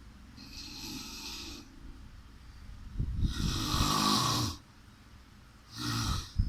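A person snoring: a softer breath about half a second in, then a loud, rough snore about three seconds in lasting about a second and a half, and a shorter snore near the end.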